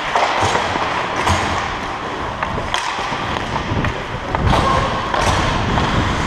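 Ice hockey skating heard from a helmet-mounted camera: skate blades scraping the ice in a steady hiss, broken by several sharp knocks.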